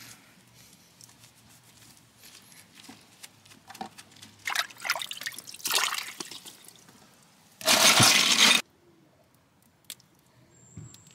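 Water sloshing and splashing as a hand rinses crawfish in a bucket of water, followed by a louder rush of water noise about a second long that starts and stops abruptly. Light clicks from handling the crawfish come before and after.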